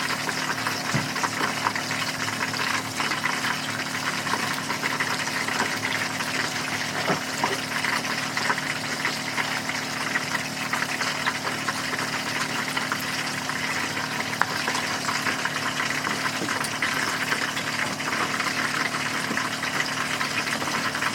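Oil sizzling in a frying pan: a steady sizzle full of fine crackles, over a low steady hum.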